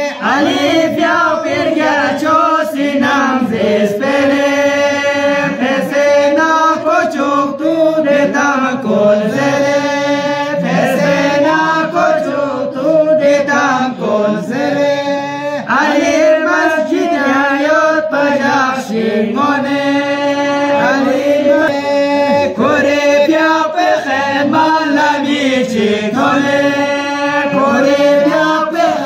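A group of men singing a chant together, unaccompanied, in repeating phrases with long held notes.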